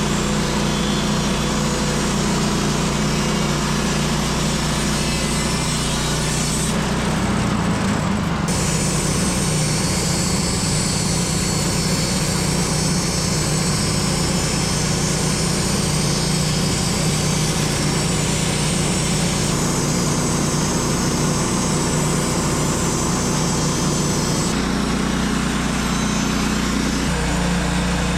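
Woodland Mills HM130 MAX portable bandsaw mill, its small gas engine running steadily while the blade saws through an oak log. The tone changes suddenly about a quarter of the way in and again near the end.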